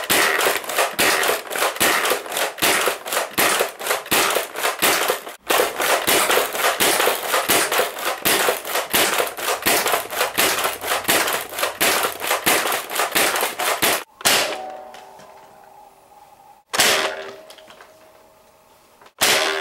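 Modified Nerf Longshot dart blaster with a pump-action shotgun priming grip being primed and fired over and over, a fast, dense run of plastic clacks and snaps. About fourteen seconds in it changes to single shots, each a sharp snap with a brief ringing tail, about two and a half seconds apart.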